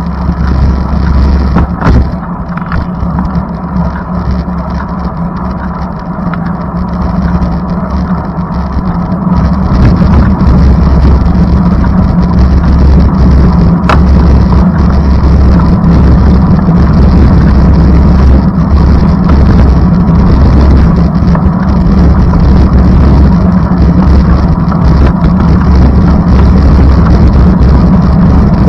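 Steady low rumble of a vehicle's engine and running gear, heard from inside during a ride, growing louder about ten seconds in as it gets under way and then holding steady.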